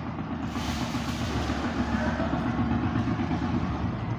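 A steady low motor rumble with a fast, fine pulsing and a background hiss, a little stronger from about half a second in.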